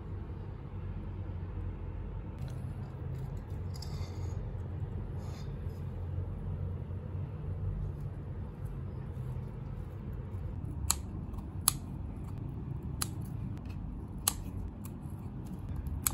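Scissors snipping the leaves of a potted spider plant, about five separate sharp snips in the second half, over a steady low hum.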